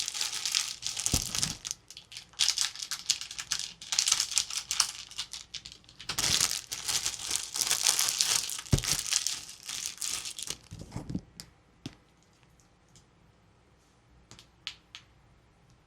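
Toy packaging being crinkled and torn open by hand in repeated sharp rustling bursts for about ten seconds, then a few faint clicks and taps.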